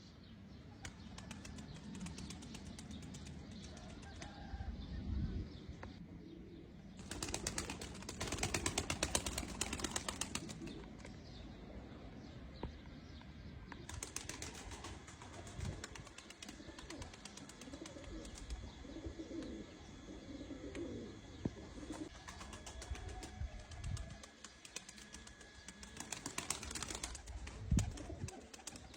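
Domestic pigeons cooing, with two bursts of wing flapping, about seven seconds in and again near the end.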